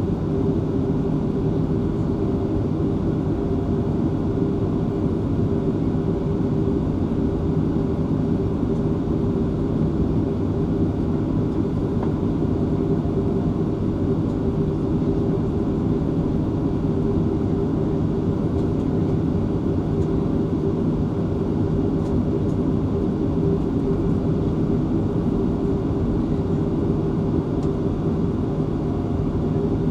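Boeing 737-500's CFM56 turbofan engines idling during taxi, heard from inside the cabin as a steady, unchanging hum with a low drone.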